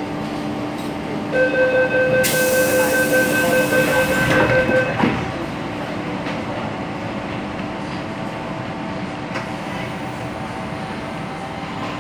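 MTR M-Train door-closing warning: rapid pulsing beeps for about three and a half seconds with a hiss over them, ending in the thud of the doors shutting about five seconds in. A steady hum of the train follows as it starts to pull away.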